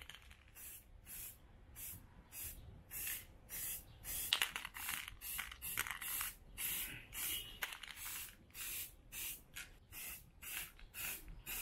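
Aerosol spray-paint can hissing in short, quick bursts, about two a second, as black paint is sprayed on in light passes.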